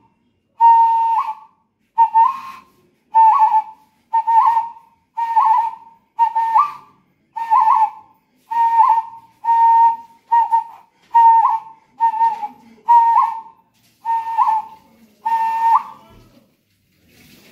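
A whistled note at one steady pitch, repeated about once a second, each half a second to a second long and often ending with a quick upward flick.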